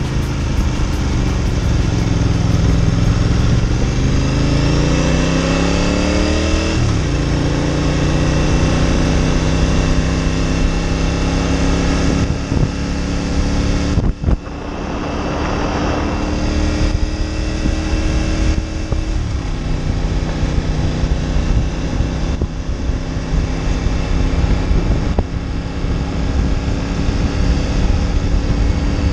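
Ducati Monster 900's air-cooled L-twin engine under way while riding. Its revs climb for the first several seconds, drop sharply about seven seconds in, then hold fairly steady, with a brief lift off the throttle about fourteen seconds in.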